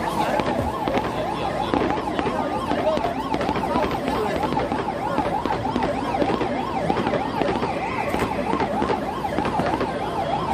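Ambulance siren in fast yelp mode: a tone rapidly sweeping up and down, several times a second.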